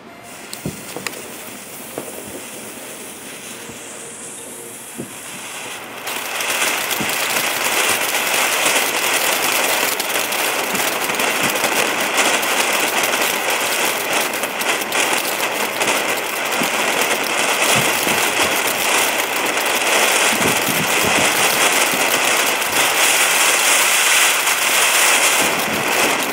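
TNT Giant Mystery Geyser ground fountain firework: about six seconds in it ignites and sprays sparks with a loud, steady hiss full of dense crackling.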